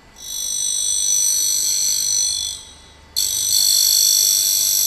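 Tool grinder's wheel grinding a cutter's edge: two passes of high-pitched, many-toned grinding noise as the tool is drawn across the wheel. The first lasts about two and a half seconds, and the second starts sharply about three seconds in.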